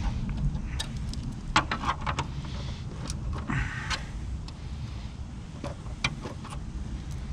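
Scattered clicks and light knocks from hand tools and the plastic engine cover being worked loose on an engine bay, over a low steady rumble.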